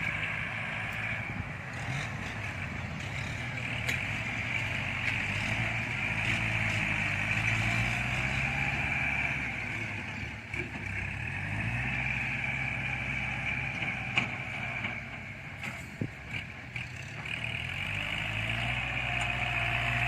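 Kubota farm tractor's diesel engine running under load while working a field, its engine note sagging briefly about halfway through and again near the end before picking back up.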